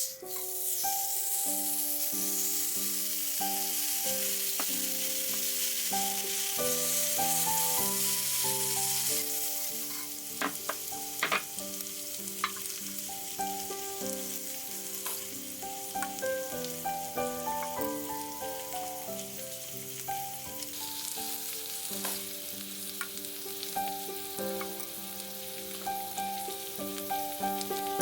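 Food sizzling hard on a hot cooking surface, loudest for the first third and then settling to a quieter sizzle, with a few sharp clicks around ten to twelve seconds in. Gentle piano-like background music plays throughout.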